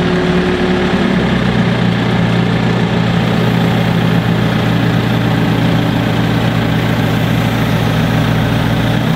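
An engine idling steadily, its note shifting slightly about a second in.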